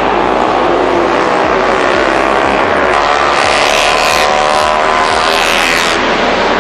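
MotoGP racing motorcycle engines at high revs, their pitch climbing steadily as the bikes accelerate past, with a rise in hiss from about halfway through.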